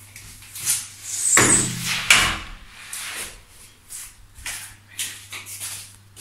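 Irregular knocks and scuffs of movement in a room, loudest in a cluster about one and a half to two seconds in, over a steady low hum.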